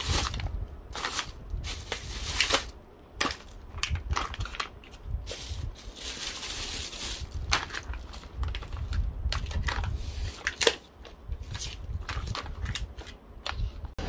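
Thin plastic carrier bag rustling and crinkling while plastic drink pouches are pulled out and laid down, an irregular run of crackles with no steady rhythm.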